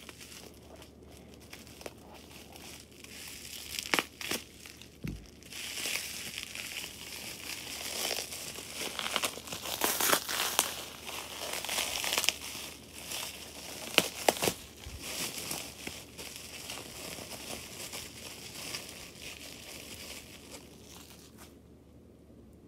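Bubble wrap being handled and crinkled, an irregular plastic crackle with a few sharp snaps, dying down near the end.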